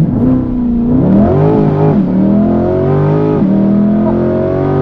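2020 Chevrolet C8 Corvette's 6.2-litre V8 accelerating at full throttle, its revs climbing through the gears. The revs drop with a quick dual-clutch upshift about two seconds in and again about three and a half seconds in.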